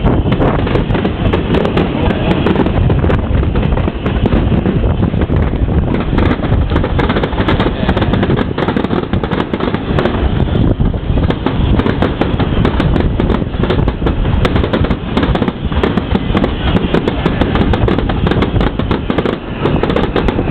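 Fireworks display: a dense, continuous barrage of shells bursting and crackling in quick succession over a heavy low rumble, with no gaps.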